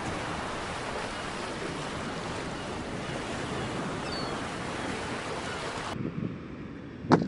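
Ocean surf breaking on a sandy beach, a steady rush of waves. About six seconds in it drops to a quieter sound, and near the end there is one sharp knock.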